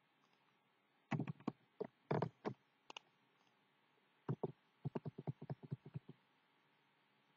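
Computer keyboard keystrokes, clicking in two bursts: a few uneven strokes about a second in, then a quick run of about a dozen near the end.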